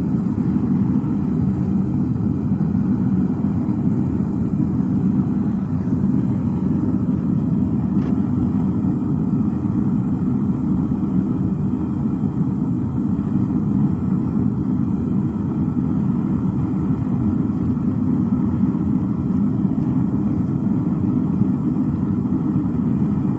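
Gas-jet burner firing a home-modified foundry furnace that holds a crucible of molten aluminium bronze: a steady, even, low rumble that does not change.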